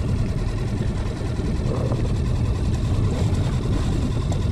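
Strong wind buffeting the microphone: a steady, fluttering low rumble.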